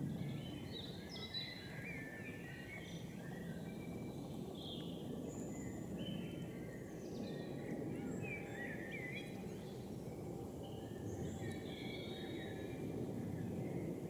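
Several small birds chirping and singing in a busy, overlapping chorus over a steady low rumble.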